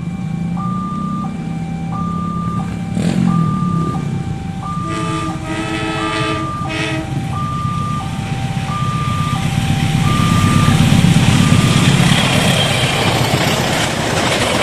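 Railway level-crossing warning siren sounding a repeating high–low two-tone wail, each tone about half a second, stopping about twelve seconds in. A chorded horn sounds a few short blasts about five seconds in, and the rumbling noise of an approaching train grows over the second half.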